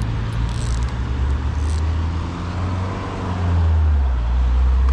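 Road traffic passing close by, a steady low engine drone that swells louder about three and a half seconds in as a vehicle goes past.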